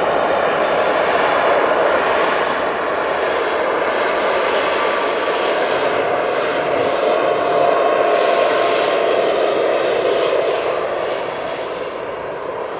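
Jet engines of a Boeing 747 on final approach: a steady, loud rush of jet noise with a faint whine, getting quieter over the last couple of seconds as the plane reaches the runway.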